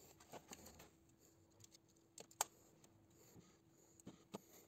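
Faint, scattered small clicks and rustles of hands handling the wires of a car's engine wiring harness, with the sharpest click about two and a half seconds in.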